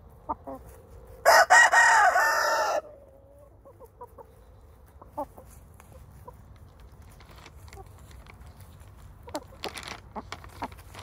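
A rooster crows once, loud and about a second and a half long, a little over a second in. Hens cluck in short, soft calls around it, more of them near the end.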